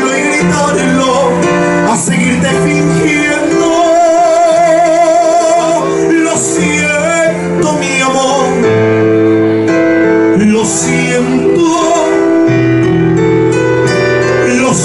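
Male singer singing into a microphone over a Korg electronic keyboard accompaniment, holding a long note with vibrato about four seconds in, while the keyboard sustains chords with a bass line underneath.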